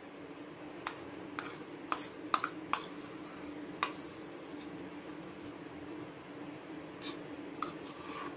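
Light, scattered clinks of a bowl or utensil against a steel bowl as whipped cream is scraped into mango purée, over a faint steady hum.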